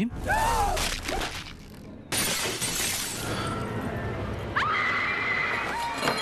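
A short cry, then about two seconds in a sudden loud crash of a window pane shattering, the glass ringing and trailing off, followed by high-pitched screaming.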